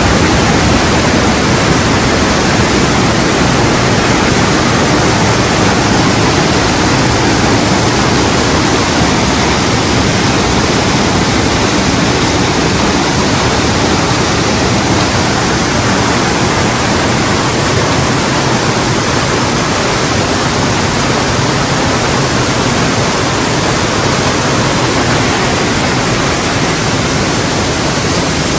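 Kaminari-daki waterfall: a powerful fall of water making a loud, steady, unbroken rush.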